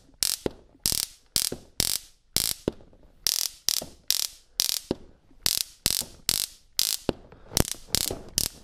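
Handheld stun gun being triggered over and over: short crackling bursts of electric arc, about two a second, each lasting only a fraction of a second.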